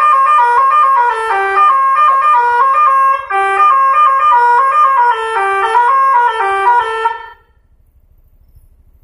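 Bus 'telolet' horn, a set of electric multi-tone horns, playing a quick melody of stepped notes, often two pitches at once, then cutting off suddenly about seven seconds in.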